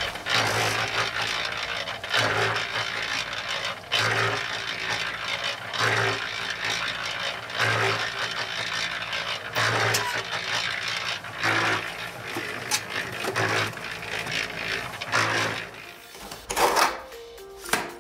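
Small electric drum concrete mixer running, its motor humming steadily while the mix tumbles in the turning drum with a swishing surge about every two seconds. Near the end a few sharp knocks.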